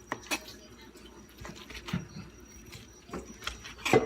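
Knife slicing through a cooked tri-tip steak and knocking on the cutting board, a few irregular taps with small wet sounds of the juicy meat, the loudest pair near the end.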